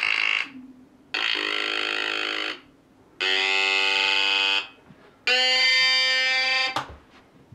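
Cyclotone mechanical sequencer: its 555-timer Atari Punk Console synths sound one after another as the centre rotor spins and its brushes power each level in turn. The result is a string of buzzy electronic tones, each about a second and a half long and at a different pitch, with short silences between them. The last tone stops shortly before the end.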